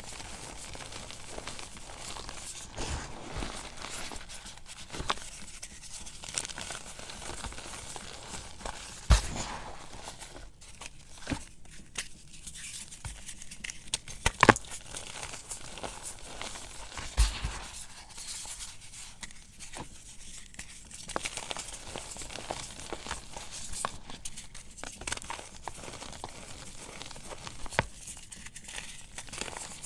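Blocks of gym chalk crushed and crumbled between the fingers: dry, powdery crunching and rustling, with sharp snaps as pieces break, a few of them much louder.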